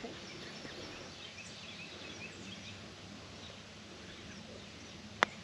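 Small birds chirping over quiet outdoor background noise. About five seconds in comes a single sharp click, the loudest sound, typical of a putter striking a golf ball.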